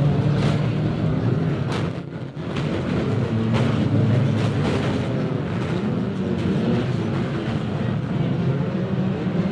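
Banger racing cars running hard around an oval track, several engines revving and wavering in pitch, with occasional sharp knocks from the cars.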